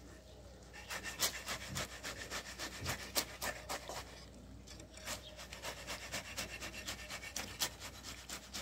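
Wooden board scraping and rubbing over wet concrete in short, quick strokes, several a second, with a lull about four seconds in: the fresh foundation concrete being smoothed to a finished face.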